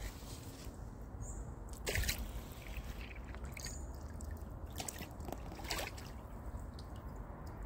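Water dripping and lapping around an inflatable kayak on a calm river, with a few small splashes about two seconds in and again near six seconds, over a low steady rumble.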